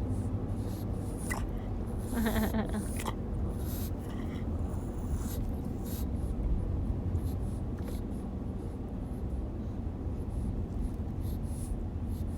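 Steady low rumble of a car driving, heard from inside the cabin, with scattered light clicks and a short pitched sound from the pug about two seconds in.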